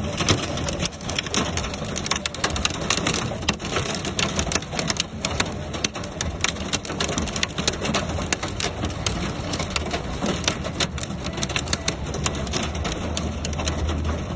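Heavy rain beating on a car in a dense, irregular patter of drops, over a low steady hum.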